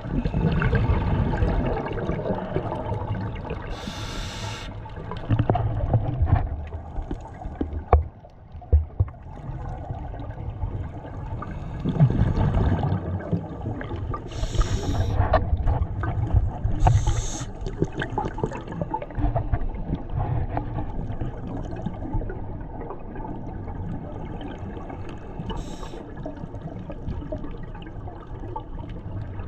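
Water sloshing and gurgling close to the microphone, with a few short hissing bursts.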